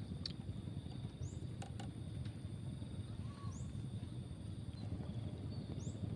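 Outdoor lakeside ambience: a steady low rumble under two thin, steady high tones, with a short rising chirp three times, about two seconds apart, and a few faint clicks early on.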